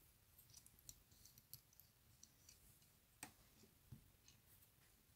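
Near silence with a few faint, scattered clicks, the loudest about three seconds in: fingers handling a latex strip and tying thread at a fly-tying vise.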